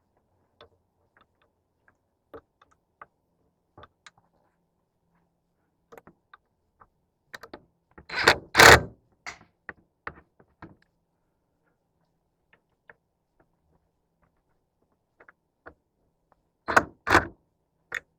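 Hardware and hand tools being handled: scattered light clicks and taps, with two loud clunks about eight seconds in and two more near the end.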